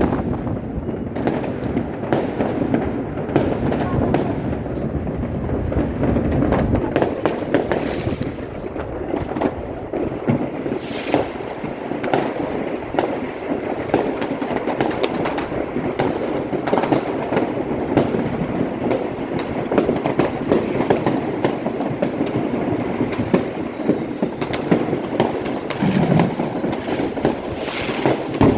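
Many fireworks and firecrackers going off at once in a continuous crackle, with frequent sharp bangs.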